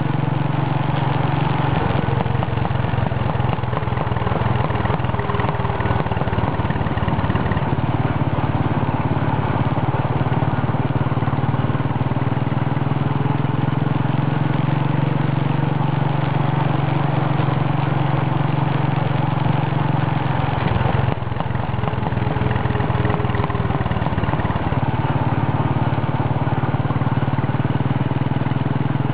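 Royal Enfield motorcycle's single-cylinder engine running steadily on the move, as a fast even train of pulses. About two-thirds of the way in it dips briefly, then picks up again.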